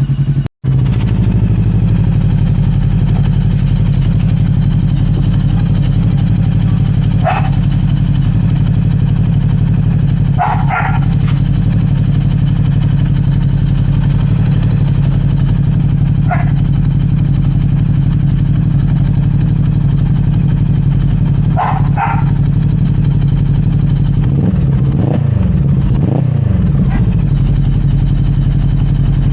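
Voge 525DSX parallel-twin engine idling steadily through a Two Brothers M2 aftermarket exhaust, with a bassy note. A dog barks four times, briefly.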